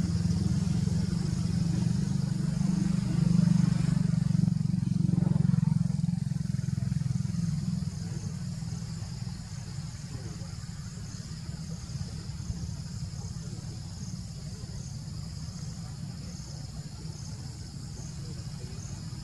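A motor engine running nearby, loudest over the first few seconds and dropping to a lower steady rumble after about eight seconds.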